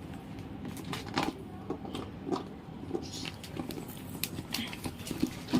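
A small dog biting and chewing a plastic water bottle: irregular crackles and clicks of the plastic under its teeth.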